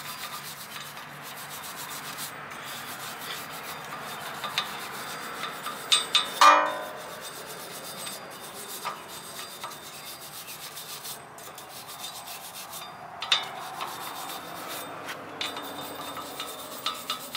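Brass wire brush scrubbing the rusty mounting face of a 2010 Honda Civic's front wheel hub, a steady scratching rasp of bristles on metal as the surface is cleaned before the new rotor goes on. A few sharp clicks and a short metallic ring come about six and a half seconds in, the loudest sounds.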